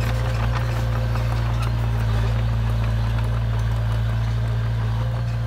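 Small Komatsu crawler bulldozer's diesel engine running steadily as the machine drives across loose dirt, with an even low hum.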